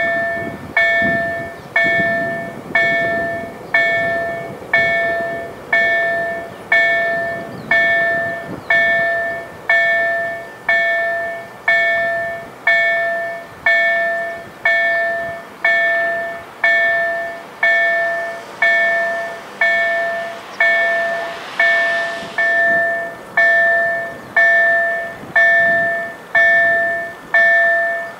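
Polish level-crossing warning bell, a KLD-4103 slow-ringing electronic bell driven by an EDG-2004+ sound generator, dinging steadily about once a second, each clear ding fading before the next. It signals that the crossing's automatic warning is on for an approaching train.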